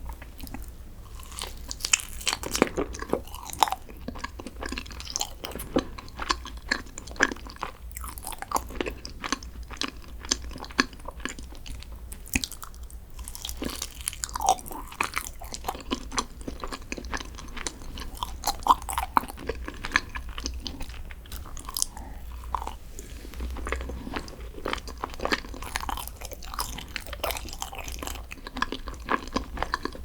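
Close-miked chewing and biting of green tea desserts, with frequent small crisp crackles and clicks.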